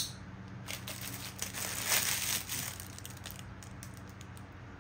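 Close-up handling of plastic and paracord water-bottle strap accessories. A single sharp click at the start, then about three seconds of crinkling rustle that is loudest about two seconds in.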